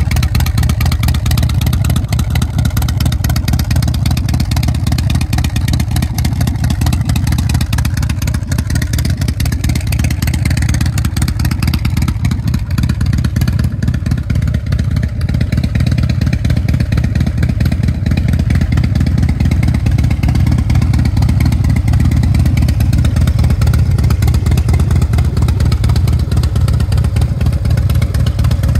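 Harley-Davidson CVO Fat Bob's 110 cubic inch Screamin' Eagle V-twin engine idling steadily through its chrome exhaust, a deep, even exhaust beat.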